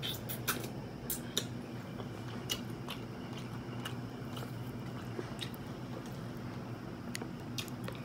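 A roasted whole chicken's wing being handled: faint, scattered wet crackles and small clicks over a steady low hum.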